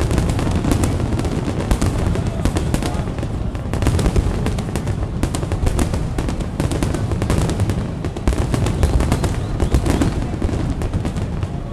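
Fireworks display: a dense, continuous barrage of sharp bangs and crackles over a low rumble, with music playing underneath.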